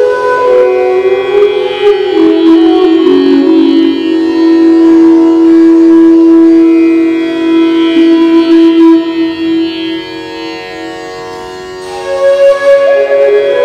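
Bansuri, the Indian bamboo flute, playing a slow improvised melody, with one long low note held for several seconds. Each note rings on in the reverberation of an empty stone water tank. The playing goes softer for a couple of seconds and then swells again near the end.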